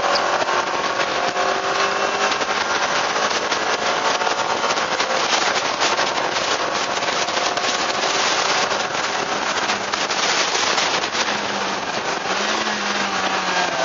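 Car engine pulling hard on a race track, its pitch climbing over the first couple of seconds, under a loud rush of wind noise with dense crackling through the middle; near the end a lower engine note rises and dips.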